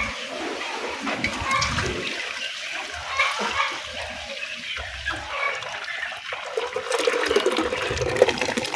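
Liquid sloshing and splashing: blended spinach and water being handled.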